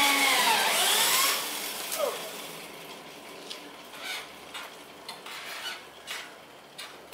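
Battery-powered abaca stripping machine stripping a stalk of abaca: a loud rasping scrape with a whine that slides down and back up, lasting about a second and a half and then fading. Light scattered clicks and rustles of the fibre strands follow.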